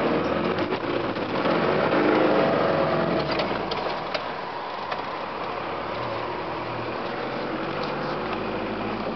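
A 4x4's engine and drivetrain heard from inside the cabin on a slow off-road drive. It works harder for the first few seconds, then eases to a steadier run, with a few short knocks and rattles.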